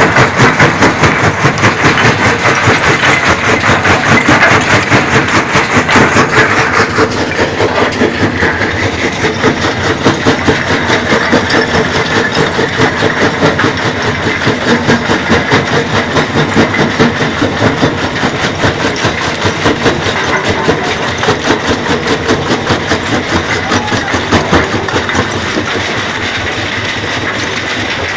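Vibrating grizzly feeder running loaded with quarry boulders: a steady, fast, even rattle of stone on the shaking steel deck, driven by its electric motor. It is somewhat louder for the first seven seconds or so.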